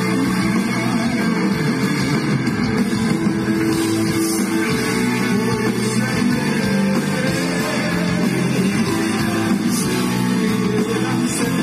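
Live rock band playing an instrumental passage, with electric guitar and drum kit and no singing.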